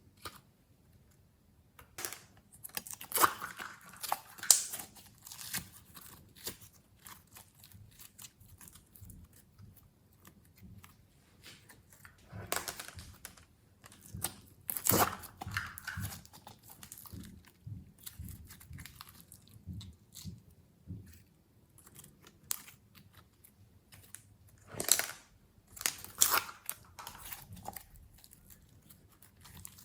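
Glossy slime being kneaded and stretched by hand, giving irregular sticky crackles, pops and squishes. It comes in three louder bouts with quieter handling between.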